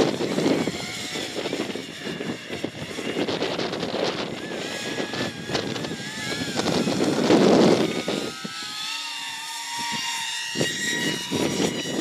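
Electric ducted fans of an FV-31 Cypher VTOL model jet whining in slow flight, several tones wavering up and down in pitch. Gusts of wind buffet the microphone, loudest at the start and about seven seconds in.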